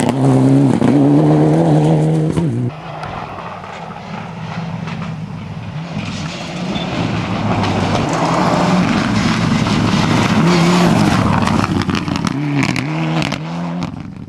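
Rally car engines at full throttle. The first revs hard through gear changes and cuts off suddenly about three seconds in. After a quieter stretch a car approaches, revving up and down through several shifts, and fades near the end.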